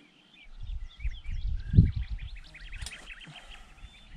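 Small birds chirping and twittering in many short rapid notes throughout. A low rumble on the microphone swells from about half a second in, peaks near two seconds, then fades.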